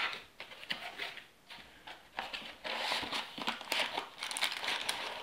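Hands handling cardboard packaging and plastic wrap: crinkling and rustling with a few light knocks. The handling gets busier about halfway through.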